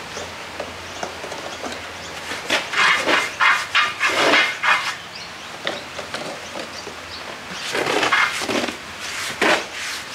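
A brush scrubbing truck wash onto the bead of a tractor tyre on its steel rim, in quick strokes that come in two spells, one in the first half and one near the end.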